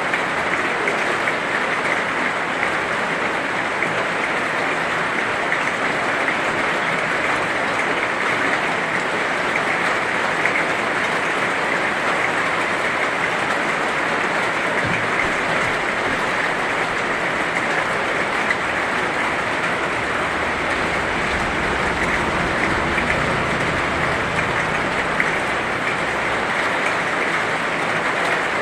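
Heavy rain falling in a steady, dense hiss with no let-up. A brief low rumble swells underneath about two-thirds of the way through.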